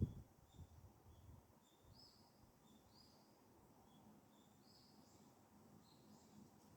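Near silence with faint bird chirps: short high calls repeating about once a second.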